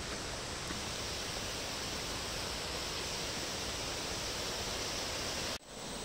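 Steady rush of falling water from a forest waterfall and its stream, an even hiss with no pauses. It breaks off for an instant near the end, where the recording cuts.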